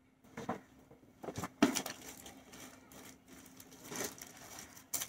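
Rustling, clicks and light knocks of objects being handled and set down, uneven and scattered, with one sharper knock about a second and a half in.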